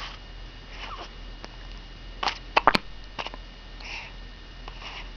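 Newborn baby with the hiccups: a cluster of short, sharp hiccups between about two and three and a half seconds in, with a few soft little vocal squeaks before and after.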